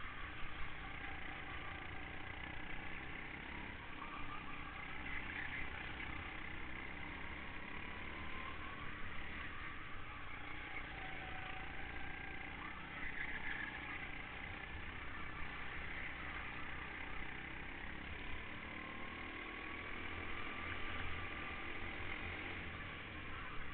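Kart engine running continuously at speed, its pitch rising and falling as the kart lifts off and accelerates through the corners, over a steady low rumble.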